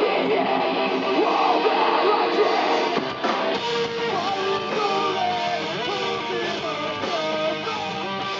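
A live rock band playing loudly, led by strummed electric guitars. About three seconds in, the dense strumming thins and a sustained melodic line with bending notes comes forward.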